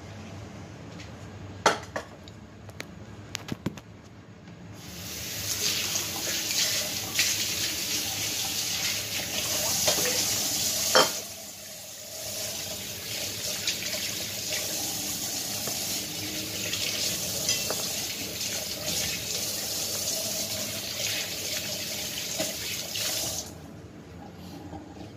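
Kitchen tap running into a stainless steel bowl in a sink, a steady splashing that starts about five seconds in and stops just before the end. A few sharp clicks come before the water starts, and there is a sharp clink about eleven seconds in, after which the splashing briefly drops before it resumes.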